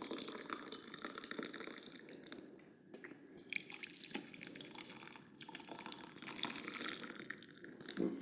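Hot water pouring from an electric kettle into glass beakers, filling each to 200 millilitres. The stream stops briefly about two and a half seconds in as the kettle moves to the next beaker, then runs again and stops near the end.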